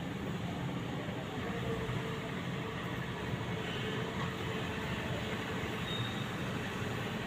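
SANY SY75C Pro compact excavator's diesel engine running steadily, a continuous low mechanical rumble.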